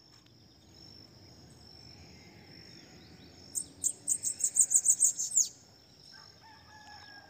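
Bananaquit (Coereba flaveola) giving a short burst of song about halfway through: a rapid run of about a dozen very high, sharp notes lasting some two seconds and ending in a downward slur. It is a bird coming out of molt just starting to sing again. A steady high insect trill runs underneath.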